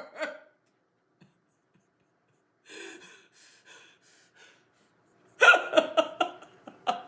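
A woman's mock sobbing: a few short breathy sobs, then she breaks into laughter about five and a half seconds in, the loudest part.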